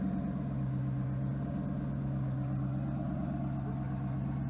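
Car engine idling steadily at an unchanging pitch, with no revving.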